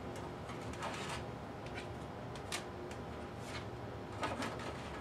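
A few faint clicks and scrapes of a 3.5-inch diskette being handled at an IBM PS/2 floppy drive, ejected and pushed back in, over a steady faint hum.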